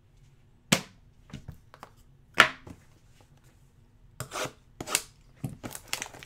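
Sharp taps and knocks of hockey cards and a card box being handled on a tabletop: single clicks about a second and two and a half seconds in, the second the loudest, then a quicker run of small clicks and rustles near the end.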